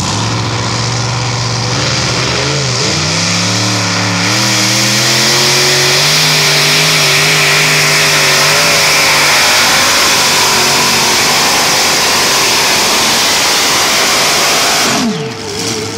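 Modified pulling tractor's multiple engines running steadily, then opening up to full throttle about three seconds in, pitch climbing in steps and then holding loud and steady through the pull. Near the end the sound cuts to another engine whose pitch falls.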